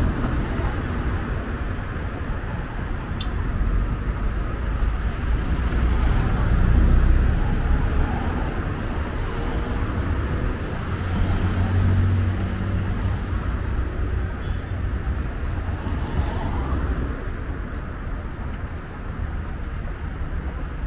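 Road traffic: cars driving past close by, each pass swelling and fading over a steady low rumble of traffic. The loudest passes come about seven and twelve seconds in.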